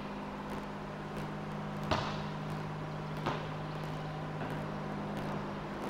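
Volleyball impacts: two sharp thuds about a second and a half apart, the first louder, as the ball is struck and comes down on the concrete court. A steady low hum sits under them.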